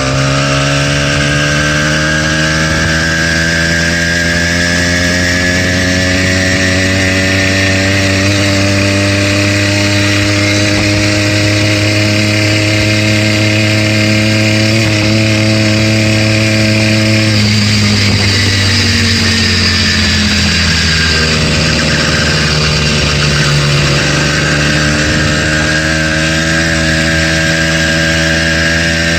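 A stock 80cc two-stroke single-cylinder bicycle kit engine running under way. Its pitch climbs slowly for over half the stretch, drops as it eases off, then holds steady. The owner says the brand-new engine has a rod knock.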